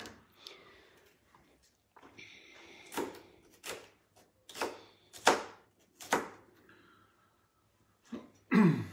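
Kitchen knife cutting a bell pepper on a cutting board: about five sharp knocks roughly three-quarters of a second apart, with a louder short sound with a falling pitch near the end.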